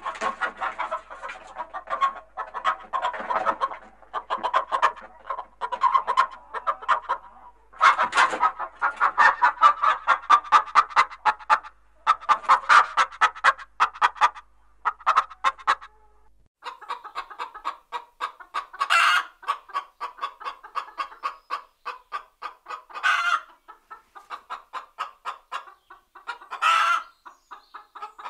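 Domestic hens clucking in quick runs of short clucks, with a few louder, drawn-out calls in the second half. About 16 seconds in, one recording cuts abruptly to another.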